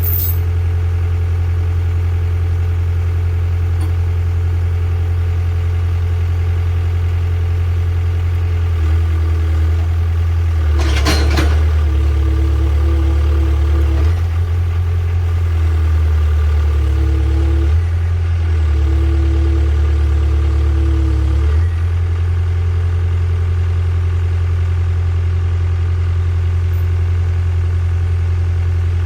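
Hitachi EX60 excavator's diesel engine running steadily. In the middle stretch its note shifts several times, as under changing load, with a brief harsh noise about eleven seconds in, before it settles back to a steady idle.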